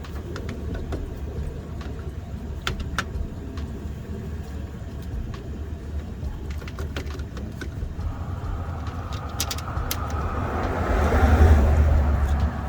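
A steady low rumble with scattered light clicks and knocks of tools on metal. Near the end a wider rush of noise swells up, like a passing vehicle, and then falls away.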